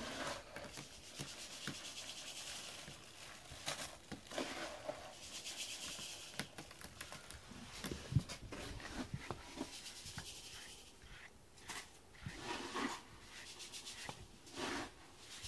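A cat clawing at a cardboard scratching board, dry rasping scrapes in several spells. Near the end, a rubber grooming brush rubbing through a cat's fur.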